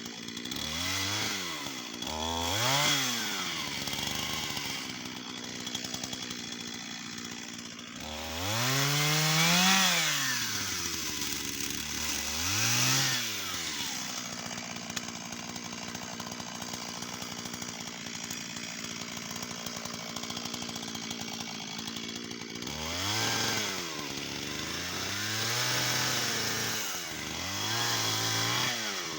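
Shindaiwa 488 two-stroke chainsaw revving up and dropping back repeatedly, with one long rev-up about eight seconds in, and idling steadily for several seconds in the middle.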